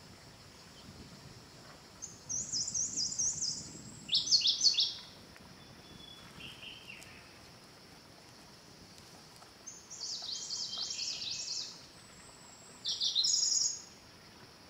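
A small songbird singing four short phrases of quick, high repeated notes, the second phrase the loudest with falling notes, over a faint steady high hiss.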